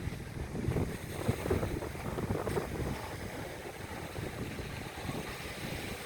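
Wind buffeting the microphone in low gusts, strongest in the first two seconds, over a steady rushing noise.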